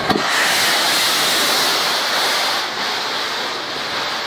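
Steady loud hiss of steam escaping from LNER Peppercorn class A1 Pacific steam locomotive 60163 Tornado, following a short click at the very start.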